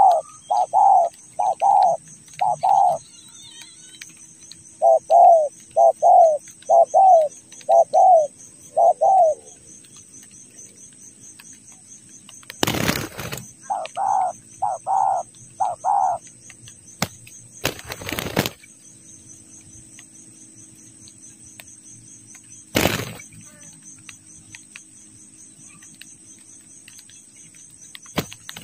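Dove call notes repeated at about one and a half a second, each note rising and falling, in three bouts. Between the bouts come a few short bursts of wing-flapping.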